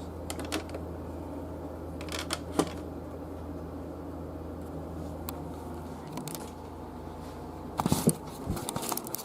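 Scattered clicks and rustling from small objects being handled, with a louder cluster of clicks near the end, over a steady electrical hum that cuts off about six seconds in.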